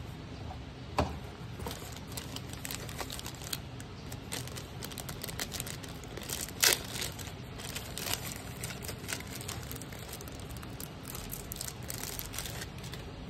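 Plastic wrapping crinkling and tearing as it is peeled off a bottle of hair serum, in a run of short crackles with one sharper crackle about midway.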